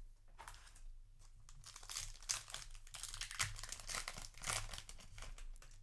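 Foil booster pack wrapper crinkling and tearing as a Yu-Gi-Oh! card pack is ripped open, a run of crackling rustles.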